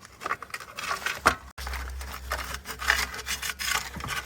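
Plastic rubbing, scraping and clicking as a car's fuel pump module housing is handled and pried apart by hand. About a second and a half in, the sound drops out briefly, and after that a low hum runs beneath the handling noise.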